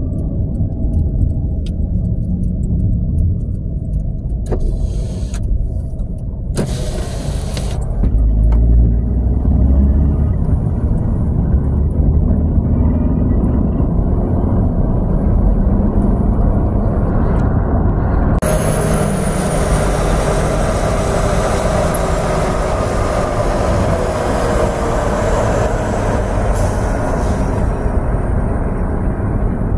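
Road vehicle driving along a multi-lane road: a steady low rumble of engine and tyre noise, with a brighter rushing noise of traffic and road joining about two-thirds of the way through.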